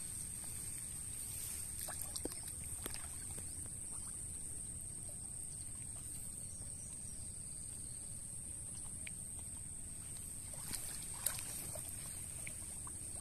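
Water sloshing and light splashing as a cast net is hauled in by hand and the person wades in the shallow water, with a few small knocks along the way. A steady high-pitched buzz runs underneath.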